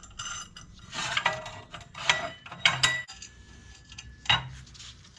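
Steel washers, a bolt and square steel tubing clinking and rattling as they are handled and fitted together at a bolted pivot joint, with several separate metallic clinks that ring briefly; the loudest comes about four seconds in.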